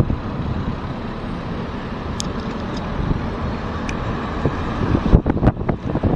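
Steady road and engine noise of a moving car, heard from inside it, with wind buffeting the microphone for the last second or so.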